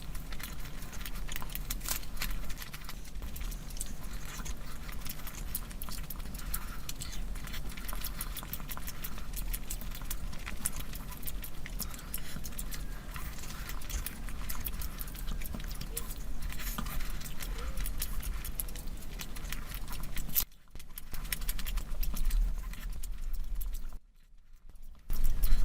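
Close-miked eating sounds: a dense run of small wet clicks and smacks from chewing and handling curry, with two short breaks near the end.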